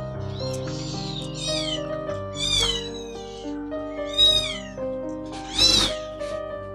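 Three-week-old kitten mewing: several high, falling cries, the loudest about four and five and a half seconds in, over background music of sustained notes.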